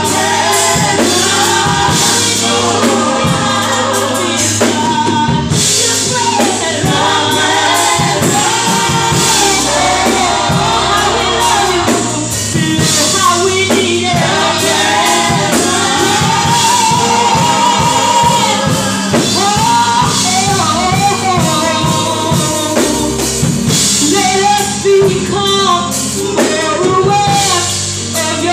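Gospel praise team of women and men singing together into microphones, with a steady beat underneath.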